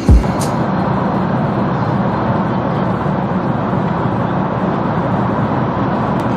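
Steady in-flight cabin noise of a jet airliner: an even rushing drone with a low hum, after one heavy thump at the very start.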